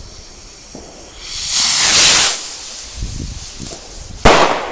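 Keller firework rocket launching with a loud hiss that swells for about a second, then, about two seconds later, a single sharp bang as it bursts in the sky.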